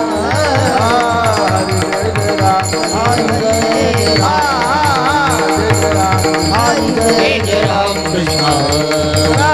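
Marathi Warkari devotional singing: a solo voice sings long, ornamented melodic phrases over a steady drum beat and ringing metallic percussion.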